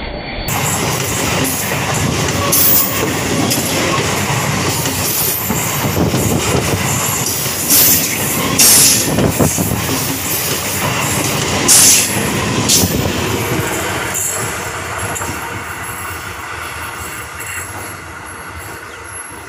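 Electric multiple-unit suburban local train running past at close range: a steady rumble and clatter of wheels on the rails, with a few brief, sharper high-pitched moments from the wheels, fading as the train draws away over the last few seconds.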